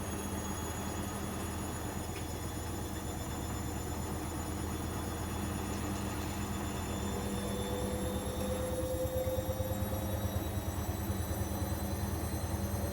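Bosch Avantixx 7 washing machine spinning, its drum speeding up: a steady machine hum with a whine that slowly rises in pitch, growing a little louder in the second half.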